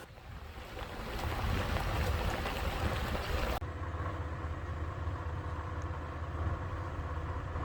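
Vehicle driving, a steady low engine and road rumble with wind noise. The higher rushing noise cuts off abruptly about three and a half seconds in, leaving the lower rumble.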